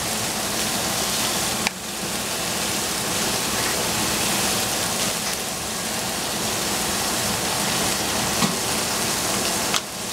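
Cauliflower florets sizzling as they fry in a stainless steel saucepan, a steady hiss with two brief dips.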